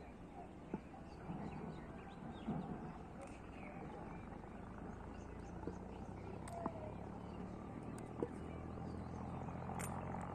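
Open-air background noise with faint distant voices, two sharp knocks about six and eight seconds in, and a low hum that grows louder near the end.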